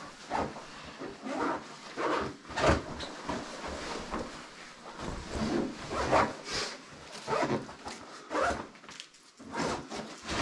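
Rustling, rubbing and zipper sounds of backpacks and gear being handled, coming in irregular bursts about once a second.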